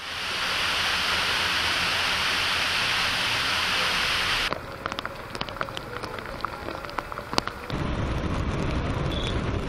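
Rainwater cascading down a flight of concrete steps: a loud, steady rush. About four and a half seconds in, it drops to a quieter water noise with scattered sharp clicks and splashes. Near the end a low rumble rises as cars drive through a flooded road.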